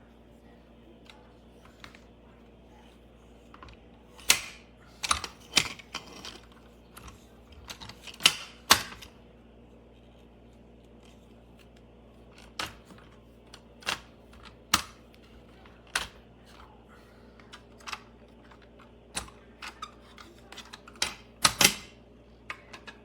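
Irregular sharp clicks and knocks of a hard plastic toy backhoe loader being handled and its parts moved, coming in clusters over a faint steady hum.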